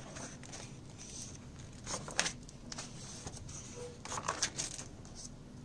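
Pages of a spiral-bound book being turned by hand: paper rustling, with two louder page turns about two seconds in and again about four seconds in.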